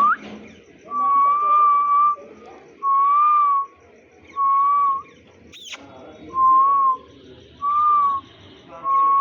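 A series of six steady whistled notes at one pitch, each lasting about half a second to a second, after a short rising whistle at the start. A brief sharp chirp falls steeply in pitch about halfway through.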